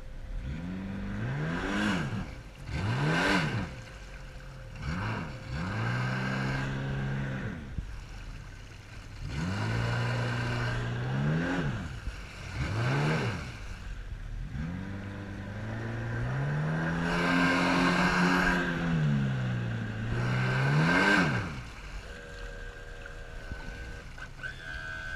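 Mercury outboard motor running, its engine speed rising and falling again and again in quick surges with a few longer steady stretches.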